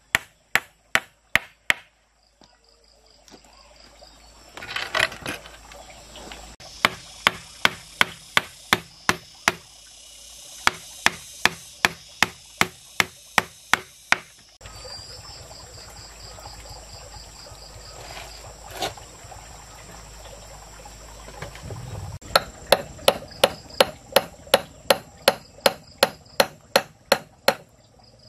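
A hand tool striking wood in quick, evenly spaced blows, about two a second, in three runs with pauses between. A faint steady insect drone carries on underneath.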